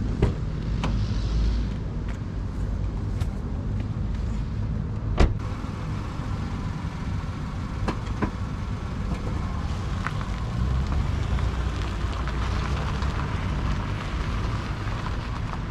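A car door shuts just after the start and another sharp knock follows about five seconds in; then a small sedan pulls off and drives away across gravel, its tyre noise growing from about ten seconds in. A low rumble of wind on the microphone runs underneath.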